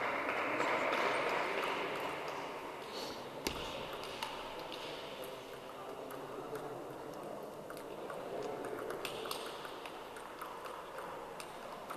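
Table tennis ball clicking off bats and the table during a rally, a few sharp irregular clicks, over the steady murmur of a busy sports hall with other matches going on.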